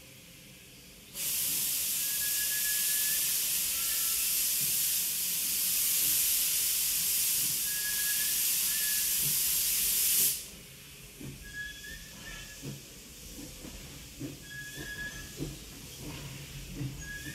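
Steam locomotive letting off steam: a loud, steady hiss that starts about a second in and cuts off suddenly about ten seconds in. After it come quieter clicks and short high chirps.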